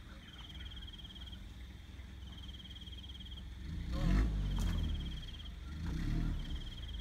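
Toyota 4WD pickup's engine running low and heavy as it crawls up a rocky track, swelling louder about halfway through and again near the end. Over it an insect trills in bursts of about a second, repeating roughly every two seconds.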